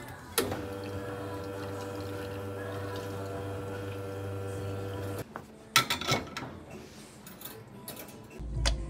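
Lelit espresso machine flushing hot water through the group head into a portafilter: a click, then the pump hums steadily with water running for about five seconds before it cuts off. A few sharp metal knocks follow as the portafilter is handled.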